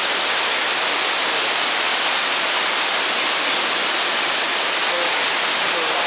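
Steady rush of falling water, like a waterfall, unbroken and even in level.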